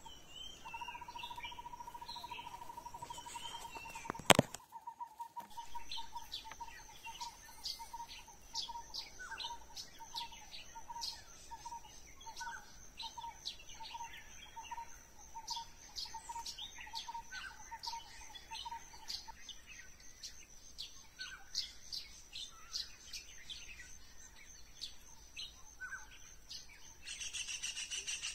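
Birds calling and chirping over a steady high insect drone; one bird repeats a single note about twice a second for much of the time, then stops. A single sharp click sounds about four seconds in.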